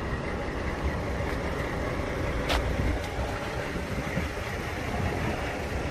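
Semi truck's diesel engine idling, a steady low rumble, with one sharp click about two and a half seconds in.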